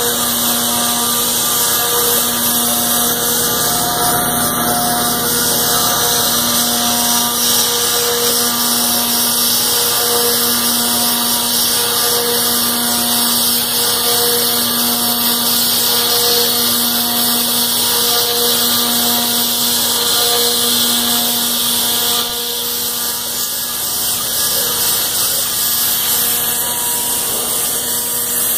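CAMaster CR-304 CNC router cutting aluminum: the spindle and cutter make a loud, steady hiss and whine. Underneath runs a hum that swells and fades about every two seconds.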